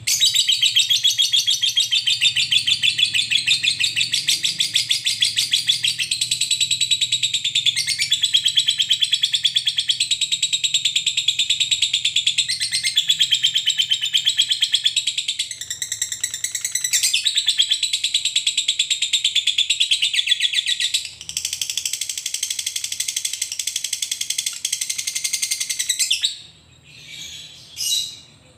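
A lovebird's long chattering trill (ngekek panjang): a rapid, unbroken rattle of high notes that runs on for about 26 seconds with only a few brief breaks, then trails off into a few short scattered calls near the end.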